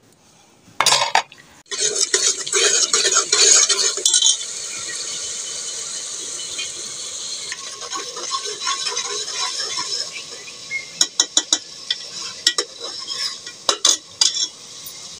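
Metal ladle stirring and scraping whole mung dal in masala in an aluminium pressure-cooker pot, clinking against the pot. The dal is being roasted in the spices, and a steady sizzle runs through the middle. Several sharp clinks of the ladle on the pot come near the end.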